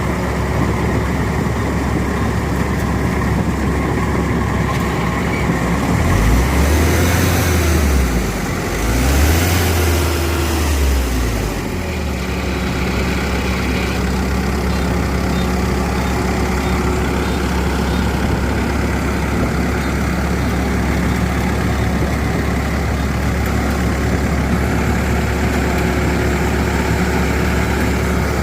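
Kubota DC-93 combine harvester's diesel engine running steadily under load. About six seconds in, the engine pitch rises and falls twice in quick succession before settling back to a steady drone.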